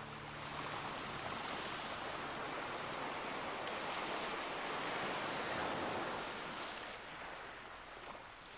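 Sea surf rushing, swelling to a peak midway and ebbing toward the end.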